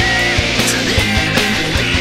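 Heavy metal band recording: electric guitars, bass guitar and drums playing at full level, with drum hits coming through at short intervals.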